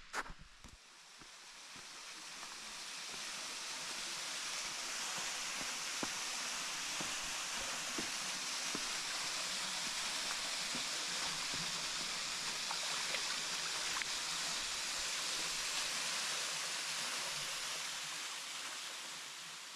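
Steady rushing water, an even hiss that fades in over the first few seconds and fades out near the end.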